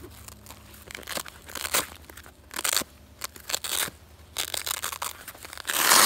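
Hook-and-loop (Velcro) fastener on a backpack being peeled apart in several short rips, the longest and loudest near the end, with the bag's fabric rustling in between.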